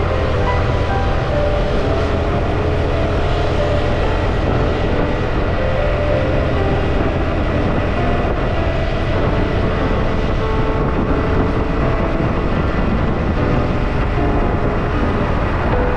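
Steady wind rumble and road noise from riding a motorbike along a highway, heavy in the low end and unbroken throughout.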